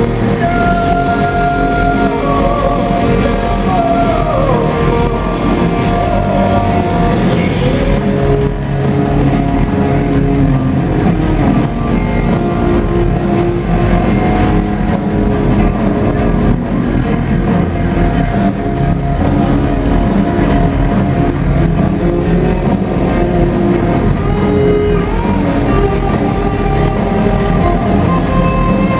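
Live rock band playing loud, with electric guitar and drums; a guitar line slides down in pitch a few seconds in, and singing comes in and out over a steady drum beat.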